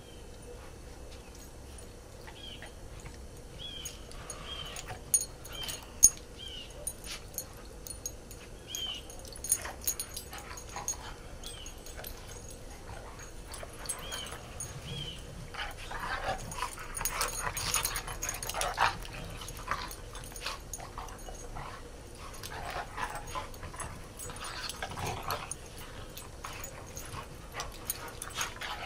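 Dogs playing rough in snow: short dog vocalizations with scuffling and crunching noises, louder and busier in the middle and again near the end.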